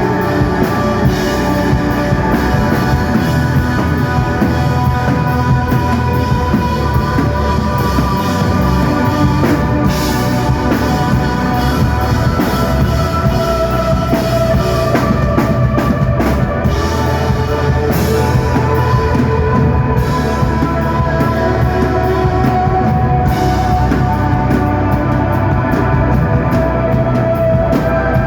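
Live rock band playing an instrumental psychedelic desert-rock piece, loud and continuous: electric guitar holding long notes over bass and drum kit.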